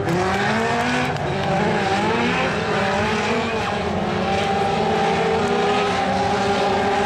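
Several Legends race cars running at speed, their Yamaha four-cylinder motorcycle engines revving high, with several engine notes overlapping and rising and falling as the cars pass.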